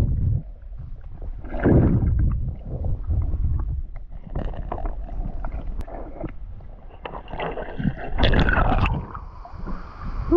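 Muffled sloshing and rumbling of water around an underwater action camera as a snorkeler swims, coming in irregular surges; about eight seconds in, louder splashing as he breaks the surface.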